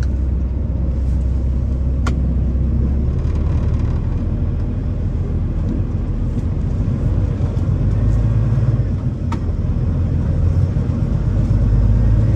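Semi truck's diesel engine running under light load, a steady low drone heard from inside the cab as it drives slowly, with the pitch rising somewhat about two-thirds of the way through. Two short sharp clicks stand out, one early and one later.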